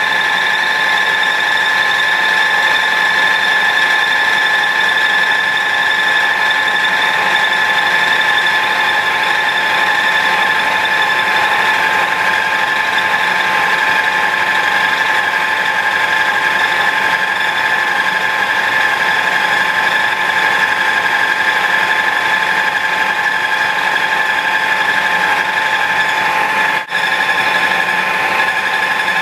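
Ingersoll CNC planer mill with a right-angle milling head running steadily, a constant high-pitched machine whine of several steady tones over a noisy hum. The sound drops out for an instant near the end.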